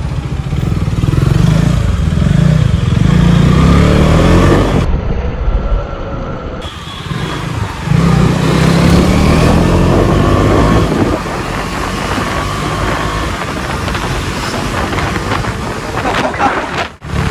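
KTM Duke 250's single-cylinder engine under way, revving up and easing off several times as the bike accelerates and slows through traffic.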